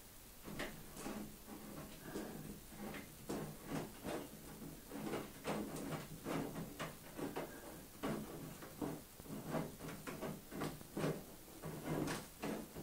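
Irregular short rustles and clicks, a few a second, as a hand handles crystal rhinestone mesh on a paper template, over a faint low hum.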